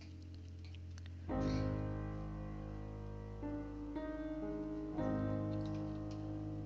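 Background piano music: held chords, with new chords struck about a second in and again every second or so after.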